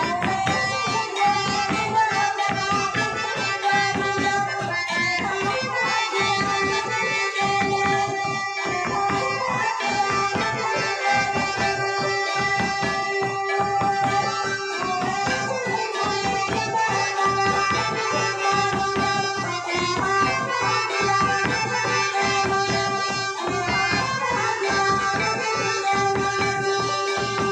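Santal dance song over a microphone and loudspeaker: a woman's singing over a steady drum beat, with an instrument holding a long steady note beneath.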